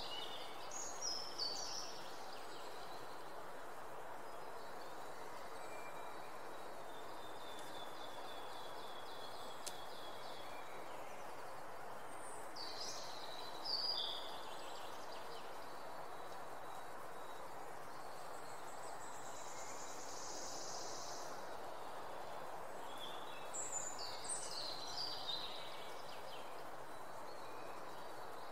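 Outdoor ambience: a steady background hiss with songbirds singing short, high phrases three times, near the start, about halfway and near the end, and a fainter run of repeated notes in between.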